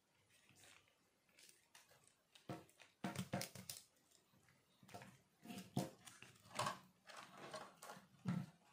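Small plastic RC crawler chassis being picked up, moved and set down on a table: quiet, scattered clicks and knocks of plastic parts and wheels, with a few louder knocks a few seconds in.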